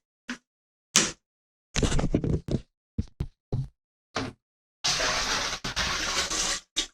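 Several short knocks and clunks, then about two seconds of water being poured into a toilet bowl: the test for whether the leak comes from the toilet's outlet.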